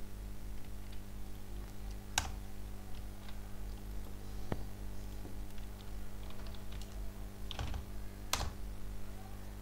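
Typing on a computer keyboard: scattered, irregular keystrokes with a few louder key strikes, over a steady low hum.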